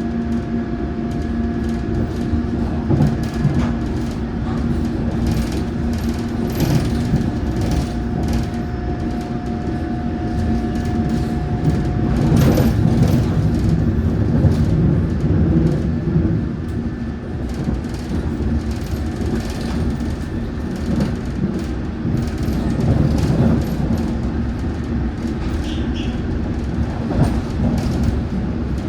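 London Underground Metropolitan line train running at speed, with a steady rumble, a whine from the traction equipment and frequent clicks and knocks from the wheels and carriage. One whining tone drops out about halfway through while the others carry on.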